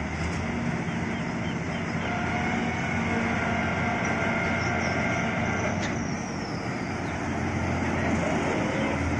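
Preet 987 combine harvester's diesel engine running steadily as the machine drives along.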